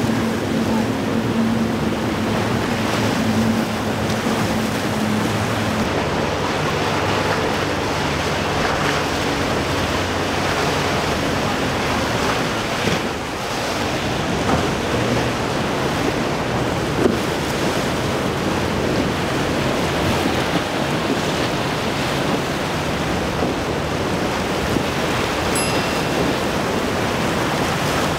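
Surf and breaking waves with wind on the microphone, under the drone of outboard motors as boats power through rough inlet water. A steady engine tone from a multi-outboard center console fades out about six seconds in.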